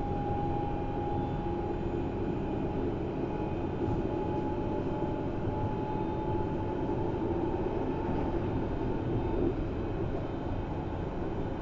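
Berlin S-Bahn class 481 electric train running at speed, heard from inside the passenger car: a steady rumble of wheels on the track, with a high whine on top that fades out about halfway through.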